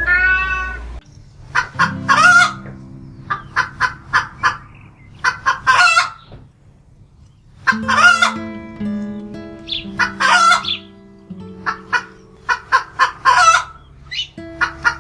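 Chickens clucking in quick short calls, with several longer crows from a rooster, over background music. In the first second a cat's meow falls away.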